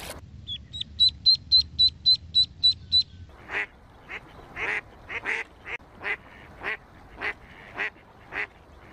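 Ducklings peeping in a quick run of about ten high, even peeps, then a duck quacking in short calls about twice a second.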